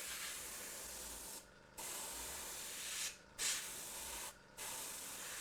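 Paint being sprayed in repeated short bursts: a steady hiss lasting a second or so at a time, stopping briefly four times.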